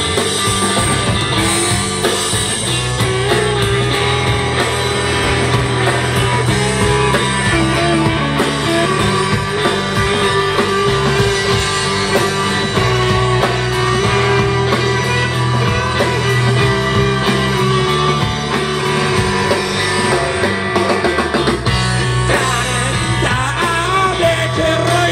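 Live rock band playing loud: electric guitars and drum kit with bass, and a melodic lead line of long held notes over the steady low end.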